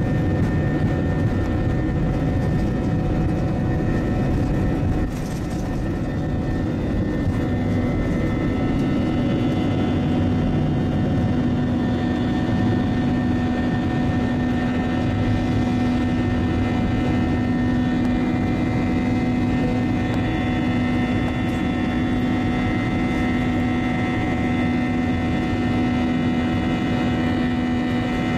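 Airbus A320's twin jet engines at takeoff thrust, heard from inside the passenger cabin over the wing, a steady loud drone with heavy low rumble through the takeoff roll, liftoff and initial climb. The rumble eases slightly about five seconds in, and a steady low hum comes in a few seconds later.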